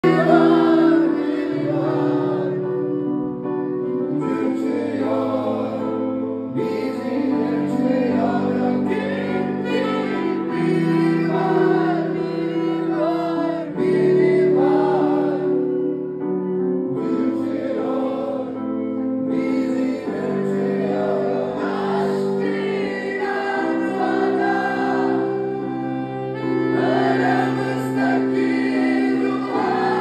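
A man singing a Turkish song live into a microphone, accompanied by held chords on a Korg stage keyboard, the singing coming in phrases with short pauses between them.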